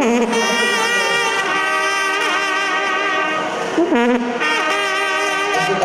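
A Mexican banda's brass section of trumpets, trombones and sousaphone playing long held chords that change about every second. There is a short break with a low sliding note about four seconds in.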